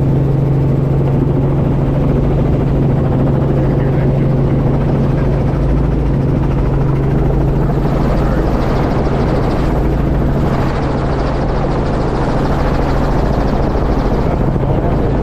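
Helicopter running steadily: a loud, continuous drone with a strong low hum, and extra hiss rising for several seconds about halfway through.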